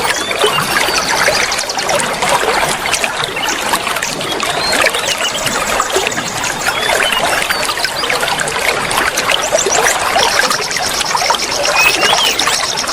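Flowing water trickling steadily, with small birds chirping and giving short, rapid high trills over it.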